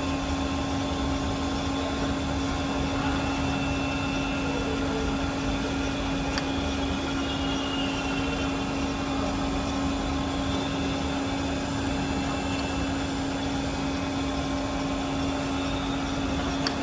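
Jones Shipman 1076 cylindrical grinder running steadily, a constant machine hum with one strong held tone over an even whirr.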